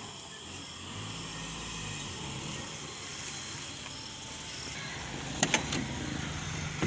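Small van's engine running at idle while the van is manoeuvred, with two sharp clicks close together about five and a half seconds in and another near the end, from the door being handled as someone gets in.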